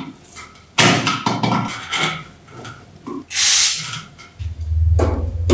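Steel pliers clicking and scraping on the rusty wire fitting of an antique teapot's wooden handle, followed about three seconds in by a short hiss of an aerosol spray can sprayed at the fitting. A low hum starts near the end.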